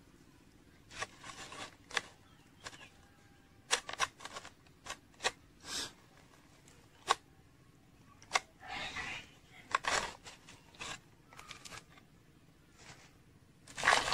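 Hands handling soil and a clear container around a grape cutting, pushing and pressing the soil in: scattered sharp clicks and short scrapes and rustles, with a longer, louder rustle near the end.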